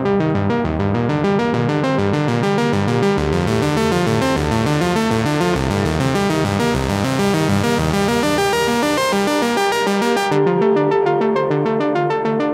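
Dreadbox Nymphes analog synthesizer playing a fast repeating sequence of notes in mono mode, with its built-in reverb on. Its resonant low-pass filter is being adjusted: the sound brightens through the middle and turns abruptly darker about ten seconds in.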